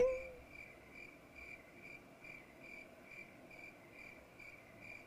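Cricket chirping in an even, repeating rhythm, about two to three short chirps a second.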